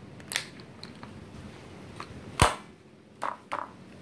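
Sharp plastic-and-metal clicks from handling the rear of a Double Eagle UMP45 airsoft electric gun where its folding stock hinges. A light click comes first, then a loud snap about two and a half seconds in, then two lighter clicks near the end.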